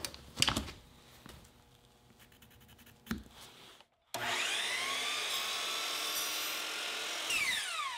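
A few quiet clicks of a tape measure being handled on wood. About halfway through, a miter saw starts suddenly, spinning up and running as it cuts through a thin strip of scrap wood, then winds down with a falling whine near the end.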